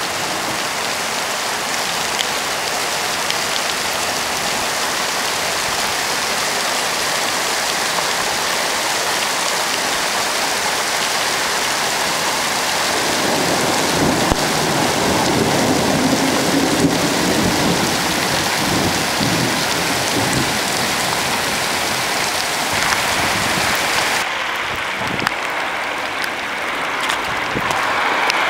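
Torrential rain pouring down in a steady loud hiss, with a long low rumble of thunder through the middle. The sound changes near the end.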